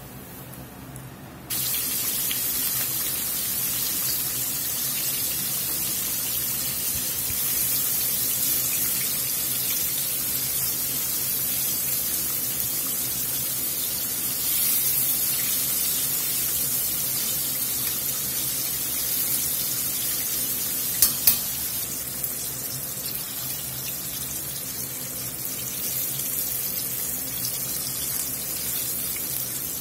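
Wet-battered chicken tenders deep-frying in hot oil in a cast-iron pot: a loud, steady sizzle that jumps up suddenly about a second and a half in as a tender goes into the oil. Two sharp clicks a little past two-thirds of the way through.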